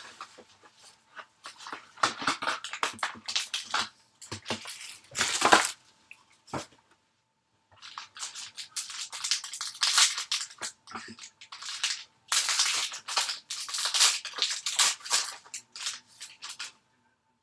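Trading-card box and foil card-pack wrapper handled and torn open: clusters of irregular crinkling and ripping with short pauses, stopping about a second before the end.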